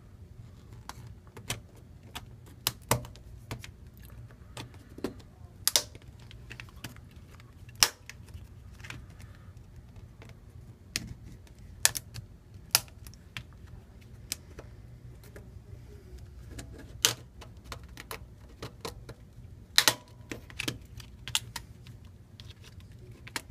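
Plastic clips on an LG Aristo phone's housing clicking and snapping loose as a guitar pick pries it open around the edge: irregular sharp clicks, about one a second, over a steady low hum.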